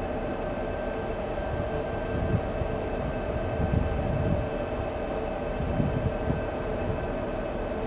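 Steady mechanical drone of a ship's engines and machinery with a few constant humming tones, and wind buffeting the microphone in low gusts about two, four and six seconds in.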